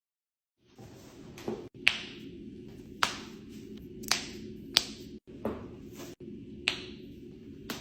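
A series of sharp joint cracks, about eight separate pops over six seconds, over a low steady background hum.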